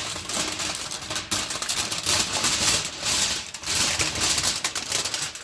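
Aluminium foil crinkling and crackling continuously as it is pressed on and folded around a smoker grate to make a baffle plate.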